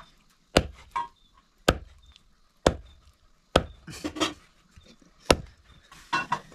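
Machete blade chopping a snake into pieces on a wooden chopping block: five sharp chops, each cutting through and striking the wood, about a second apart with a longer pause before the last.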